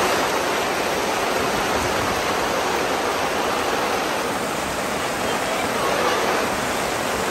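Heavy rain pouring down, a loud, steady rushing hiss.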